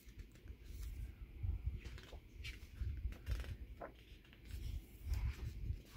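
Pages of a large photo book being handled and turned: a few short paper rustles with soft low bumps from the hands on the book.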